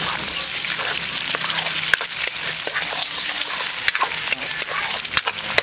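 Eggs sizzling in hot annatto oil in a wok over high heat. A metal ladle scrapes and clicks against the pan as the eggs are stirred and broken up.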